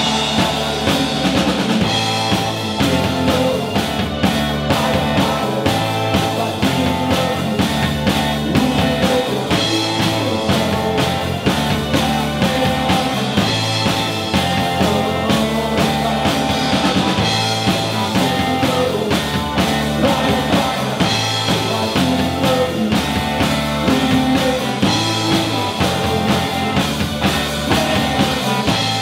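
Live rock band playing: electric guitar, bass guitar and keyboard over a drum kit keeping a steady beat.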